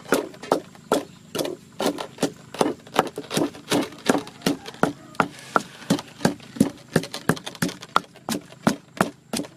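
Wooden pestle pounding in a stone mortar: dull knocks in a steady rhythm of about two and a half strokes a second.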